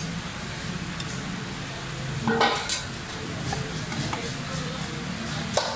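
A curved fish-cutting knife knocking and scraping on a wooden chopping block as a fish fillet is cut. There is a cluster of sharp knocks about two and a half seconds in and a single click near the end, over a steady low hum.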